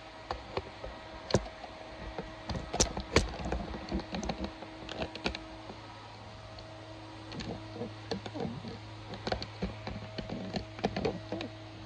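Scattered clicks and knocks of tools and parts being handled on a wooden workbench, a few of them sharper, over a steady low hum.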